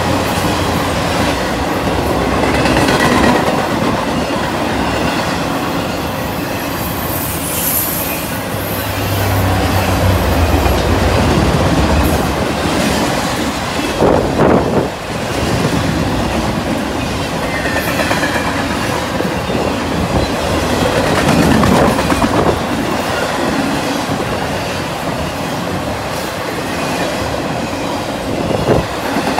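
Intermodal freight train's loaded well cars rolling past close by: a steady, loud rumble of steel wheels with clattering over the rails, and a high wheel squeal about seven seconds in.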